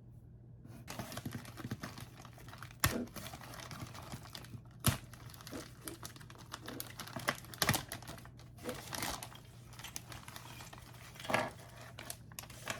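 Hands handling small model-kit parts and their packaging: a steady crinkly rustle broken by a few sharp clicks of parts knocking together or being set down.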